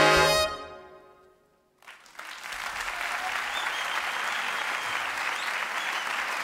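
A big jazz band's final brass-heavy chord is cut off about half a second in and rings away to near silence. Then an audience breaks into steady applause about two seconds in.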